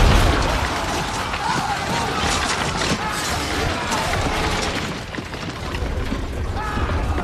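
Film battle soundtrack: a dense, continuous mix of weapon clashes and impacts, shouting voices and orchestral score.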